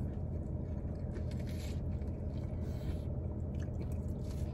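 People biting into and chewing crispy chicken snack wraps, with soft crunches a few times, inside a car cabin with a steady low hum underneath.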